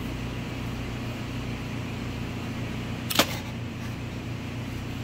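Steady low hum of workshop machinery, with one sharp metallic clack about three seconds in as the steel gear shaft and tools are handled on a steel bench.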